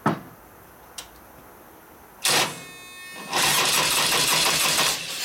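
Electric starter cranking the rebuilt S&S 88 cubic inch Evo-style V-twin of a 2001 Indian Scout. A click, then another about a second in; a jolt as the starter engages, a short whine, and about a second and a half of steady cranking that stops near the end, without the engine catching. It is a hard-starting motor, with the plug wires just reversed.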